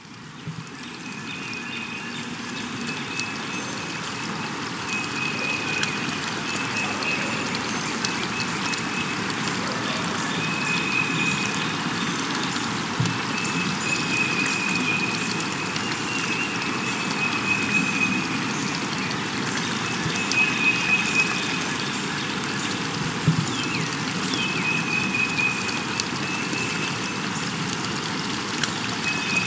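Steady hiss like falling rain, fading in over the first couple of seconds, with a faint high tone that comes and goes every couple of seconds.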